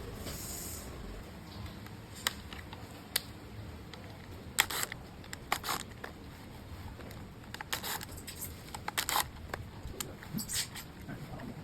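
Irregular sharp clicks and light knocks, a dozen or so in small clusters, of a circular saw and its slider parts being handled and fitted together, over a low steady background hum.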